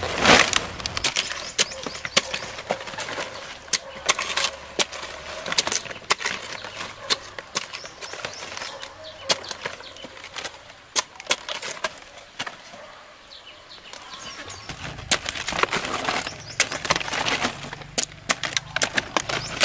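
Fresh cabbage heads being handled and their outer leaves snapped and torn off: a run of crisp cracks and crunches over leafy rustling, busiest near the start and again near the end.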